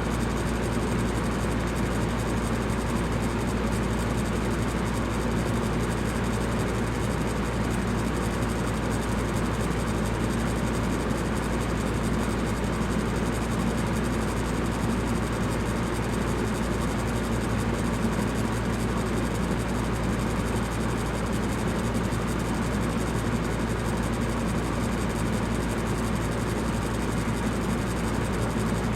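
Electric fan running steadily: an even rush of air with a low hum underneath, unchanging throughout.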